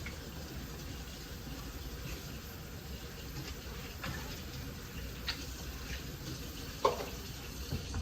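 Water running steadily from a tap, with a few light knocks, the loudest about seven seconds in.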